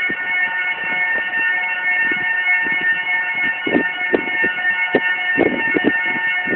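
Railway level-crossing warning bell sounding, starting suddenly at full loudness as a cluster of several steady tones, with irregular knocks underneath.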